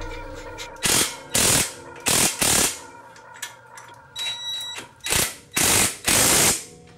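Ryobi cordless impact wrench running in a series of short rattling bursts, about seven of them, as it runs in the coilover strut-to-knuckle bolts.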